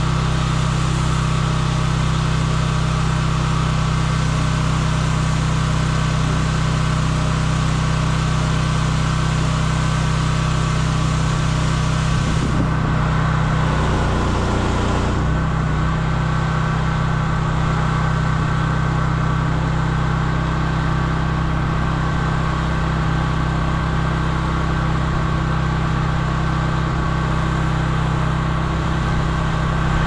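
Engine-driven pressure washer running steadily under load while its lance sprays water onto wet paving, giving a constant engine note with a hiss of spray over it. The spray breaks off for a couple of seconds near the middle, and the engine note wavers before the spray resumes.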